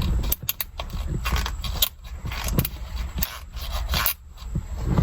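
Nylon zip tie being cinched tight around a shift boot, its ratchet giving a series of irregular sharp clicks and scrapes.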